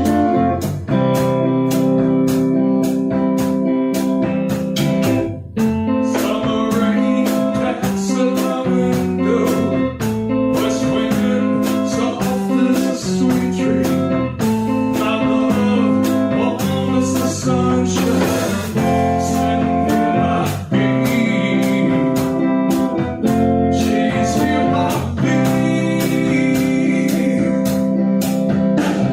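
A band playing a blues-flavoured song, with guitar over a steady beat.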